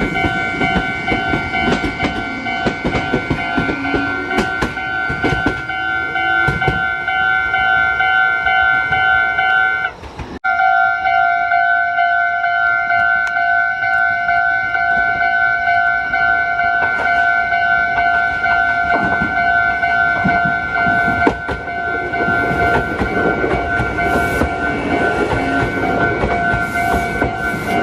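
Japanese level-crossing warning bell ringing steadily while a Meitetsu electric train runs over the crossing, its wheels clattering over the rail joints. The bell's ringing cuts out briefly about ten seconds in.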